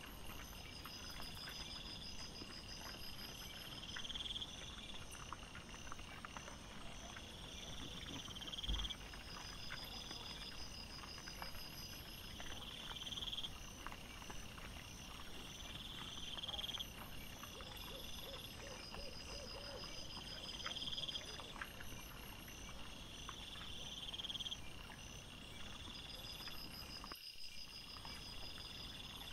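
Night insects trilling in a high, repeating pattern, a trill every couple of seconds, over scattered small clicks and rustles from wild boar rooting and feeding on the forest floor. The sound breaks off briefly near the end.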